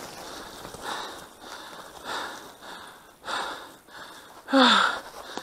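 A man breathing hard, with a noisy breath about once a second while walking. The loudest breath, near the end, has a falling pitch like a sigh.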